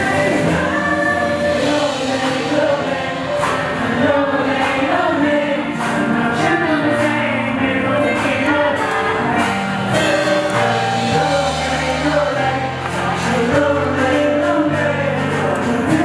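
A pop song played through a live PA system, with several voices singing together over a backing track and a steady bass line.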